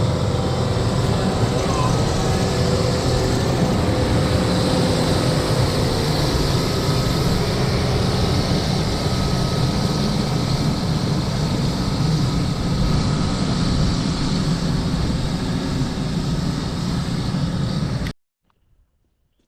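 An engine running steadily, with a dense low rumble and a few faint steady tones, stopping abruptly near the end.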